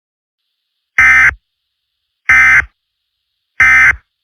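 Emergency Alert System SAME data tones: three identical short electronic screeching bursts, each well under half a second long and a little over a second apart. This is the end-of-message signal that closes an EAS broadcast.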